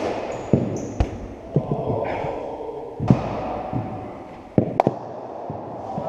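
Scattered echoing thuds and knocks of cricket balls bouncing and being hit in indoor nets in a large sports hall. A sharp double knock about three-quarters of the way through is the loudest.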